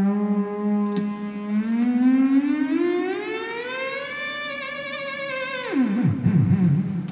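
Theremin playing a steady low note, then gliding slowly upward to a higher note and holding it, before dropping abruptly about six seconds in into low, wavering pitches.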